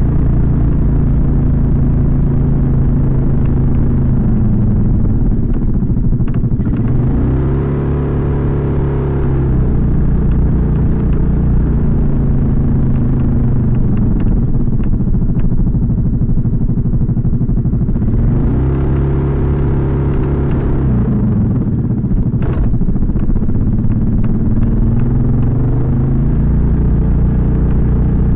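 Suzuki Skydrive 125 scooter's single-cylinder engine and carburettor intake, heard close at an air-filter box modified to stop the intake 'ngorok' growl, running on the move with its pitch rising and falling twice as the throttle is opened and closed. A sharp knock comes about twenty-two seconds in.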